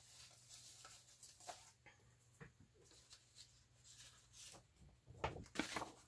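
Faint rustling and light taps of paper being handled, busier near the end as a folded sheet of printed paper is laid onto card stock.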